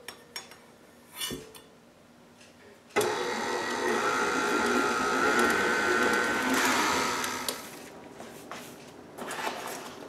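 KitchenAid stand mixer's motor starting suddenly about three seconds in and running for several seconds with a steady whine that rises a little, beating butter and sugar for creaming, then winding down and stopping; a few light clicks before it starts and knocks after it stops.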